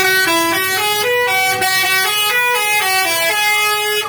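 Indonesian 'telolet' bus horn playing a quick tune of short stepping notes, stopping near the end.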